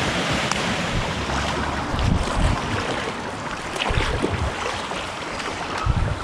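Stand-up paddleboard being paddled along a canal: paddle strokes in the water about every two seconds, over a steady wash of water and wind noise on the microphone.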